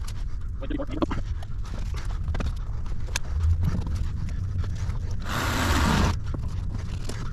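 Shovel scraping and dumping dirt or gravel, with a loud rush of scraping about five seconds in and another starting near the end, over a low steady rumble.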